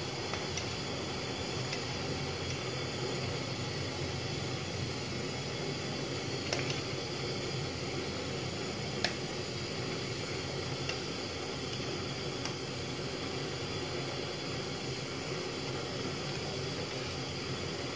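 Steady hiss of a pot of tom yum soup heating on a gas burner, with a few light clinks of a ladle against the aluminium pot, the clearest about halfway through.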